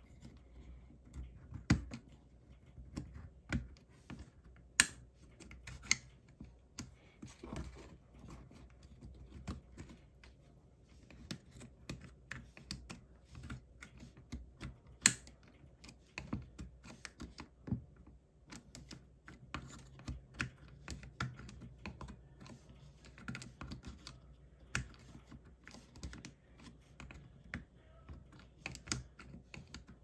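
Irregular small clicks and taps of a lock mechanism being worked by hand with a thin pick, its wooden pins knocking and sliding in the slots of black plates. A few clicks are sharper, the sharpest about five and fifteen seconds in.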